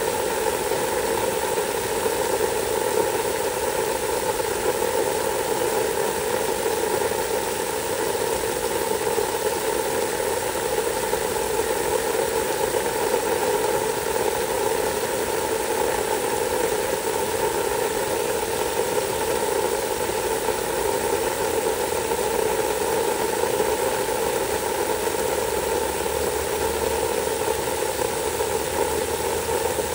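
Water spraying steadily from a hose onto wood-chip mulch: a continuous, even hiss with a steady hum under it.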